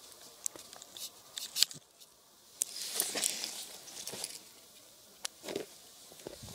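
Clark's nutcracker moving about on dry moss and needles close to the microphone: scattered sharp taps and ticks with short scratchy rustles, a few louder bursts around the middle and near the end.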